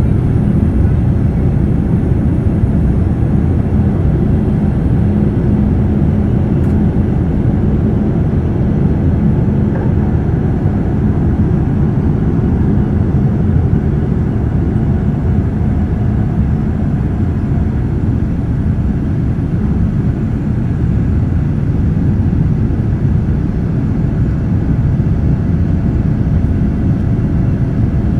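Steady low rumble of cabin noise inside a Boeing 787-9 airliner, with no change in level or pitch.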